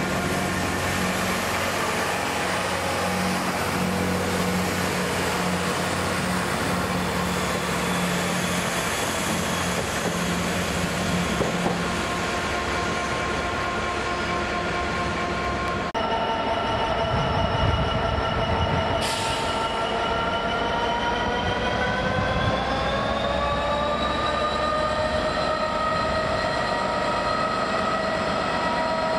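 A Class 166 diesel multiple unit running along the platform with its diesel engine humming. After a cut, a Class 66 diesel locomotive hauls a container freight train past: its two-stroke diesel engine note rises in pitch about two-thirds of the way through, over the rumble of wheels on the rails.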